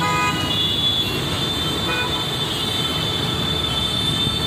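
City road traffic: a steady wash of engines and tyres, with a vehicle horn tooting briefly at the start and a thin high steady tone running above the traffic.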